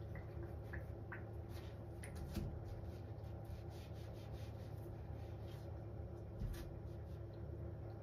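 Wet sponge pressed and worked against the bottom of a stainless-steel sink in soapy liquid: soft squelching and crackling suds with scattered small clicks, a little louder about two and a half and six and a half seconds in, over a steady low hum.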